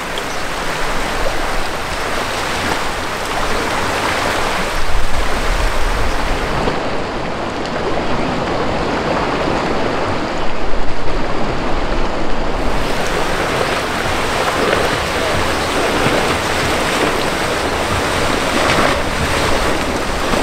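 Steady rushing and churning of rough, turbulent canal water and a powerboat's wake, with wind buffeting the microphone; louder surges come about five and ten seconds in.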